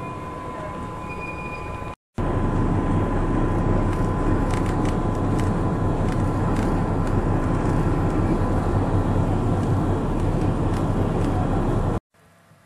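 Steady running noise of the Tramway du Mont Blanc's electric rack railcar heard on board, with a thin steady whine. It drops out for a moment about two seconds in, comes back louder, and cuts off suddenly near the end.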